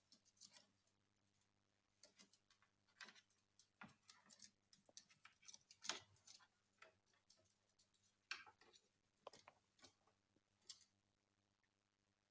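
Faint, irregular small clicks and scratches, several a second, that die away about eleven seconds in.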